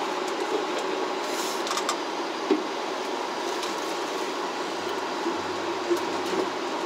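Running noise of a Skyrail rope-driven suspended car heard from inside the cabin as it travels along its track: a steady rumble and hum with a few brief light clicks.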